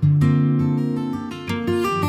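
Solo acoustic guitar music, played fingerstyle: a chord is struck and rings out as it fades, then a few new notes come in near the end.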